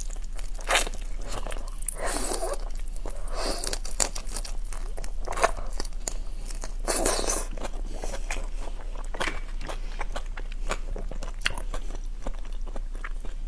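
Eating raw shrimp: biting and chewing through the shells and sucking at the flesh, with sharp crunches and clicks and wet smacking sounds, over a low steady hum.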